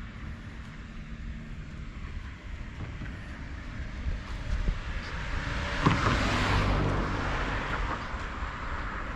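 A road vehicle passing by: a low rumble that grows louder to its closest about six seconds in, then fades.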